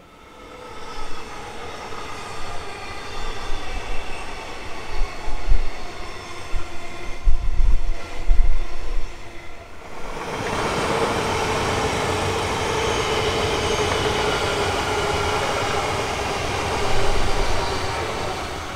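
Melbourne Metro suburban electric trains. First a train approaches and grows louder with a whine and a few low thumps. Then, after a sudden change, another runs past close by with a steady, loud rolling rail noise and humming tones.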